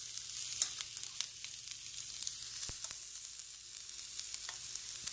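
Hot oil sizzling steadily in an electric skillet as tempering spices fry in it (mustard seeds, dals, green chillies), with scattered small sharp pops.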